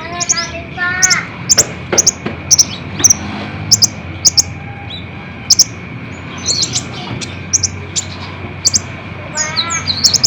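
Kolibri ninja sunbird calling: sharp, very high chips, often in quick pairs, repeated about once a second, the rapid 'tembakan' notes of a lure recording. A short warbled phrase of falling notes comes at the start and again near the end, over a faint steady whine.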